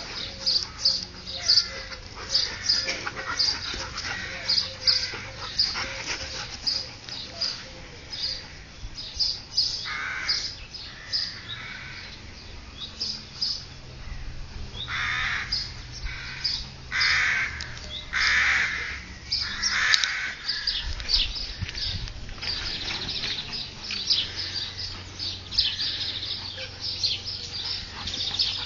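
Two dogs play-fighting, with many short, high-pitched yips and a run of longer, harsher play noises about halfway through.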